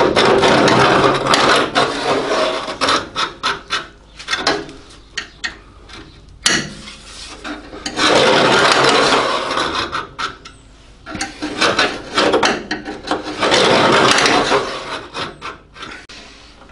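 A steel scriber scratching along the edge of a clamped new floor-pan panel, scoring a cut line into the old sheet steel beneath. It comes in three long passes, with shorter scratches between them.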